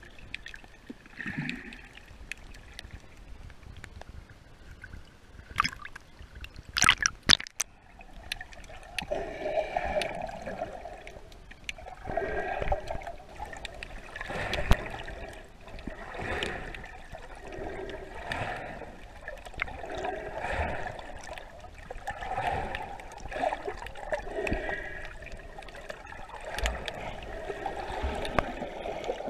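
Water gurgling and sloshing, heard muffled from under the water's surface. There is a loud splashing burst about seven seconds in, then a swishing surge about every two seconds.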